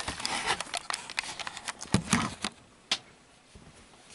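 Handling noise from a vintage Brentwood box fan being moved and turned over: a run of irregular knocks, clicks and scrapes, a sharp click about three seconds in, then near quiet.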